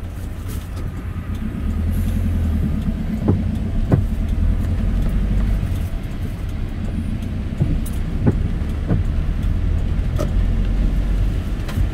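Car cabin noise while driving on a rain-wet road: a steady low rumble of engine and tyres that grows louder about two seconds in, with scattered sharp ticks.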